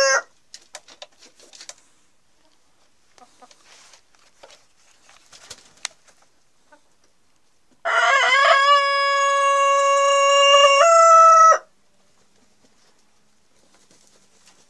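Rooster crowing once, a single crow of nearly four seconds that starts rough, holds one steady note and steps up in pitch just before it cuts off. Before the crow, only faint scattered clicks.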